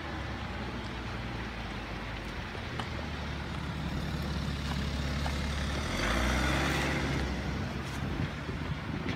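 A road vehicle driving past, its engine rumble building and loudest about six to seven seconds in, then fading.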